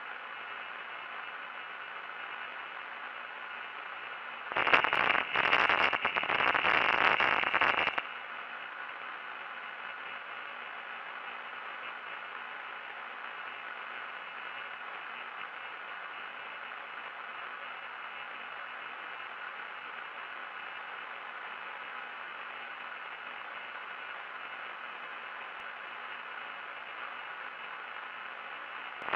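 Steady electronic hiss like radio static, with a louder burst of noise about five seconds in that lasts some three seconds.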